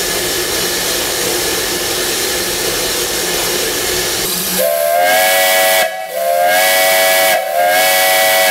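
Steam locomotive venting with a steady loud hiss, then its steam whistle blown in three long blasts from a little past halfway, the last one still sounding at the end.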